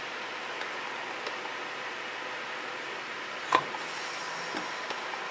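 Steady whir of an induction heater rig's cooling fans and water pump, with one sharp clink about three and a half seconds in as a copper ingot is dropped into the hot graphite crucible.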